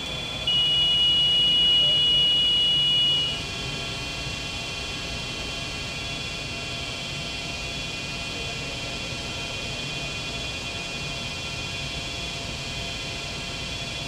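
A laser warning buzzer gives one steady, high tone for about three seconds, starting about half a second in, as the laser comes on. After it, a steady hum of clean-room air handling and test equipment continues, with faint high whines.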